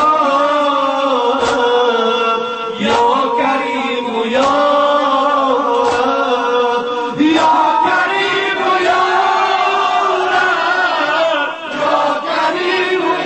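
Male voices chanting a nowha, a Shia mourning lament, with a regular sharp beat about every second and a half.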